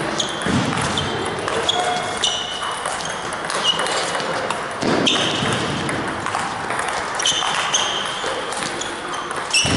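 Table tennis practice: celluloid-type ping-pong balls clicking off rackets and tables in quick succession, with frequent short high squeaks of sneakers on the wooden gym floor, echoing in a large hall.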